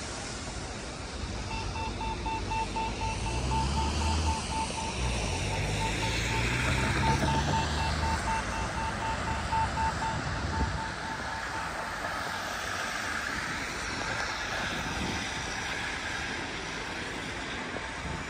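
Road traffic going by, with one vehicle's engine rumbling louder in the middle and then fading. Over it, a rapid electronic beeping at one steady pitch starts about a second and a half in and stops about two-thirds of the way through.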